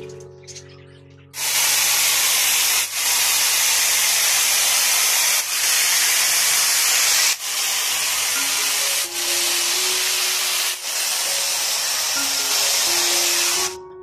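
Angle grinder with a cutting disc cutting through plastic mesh: a loud, steady hiss that starts about a second in and stops just before the end, broken by short gaps every couple of seconds. Soft mallet-like background music plays underneath.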